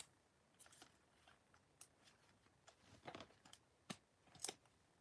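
Faint handling sounds of a trading card being slid into a rigid clear plastic top-loader: a few brief clicks and light scrapes of plastic and card.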